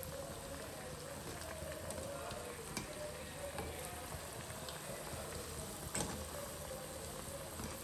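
Food frying in hot oil in a pan: a steady sizzle with scattered small crackles, and one sharper pop about six seconds in.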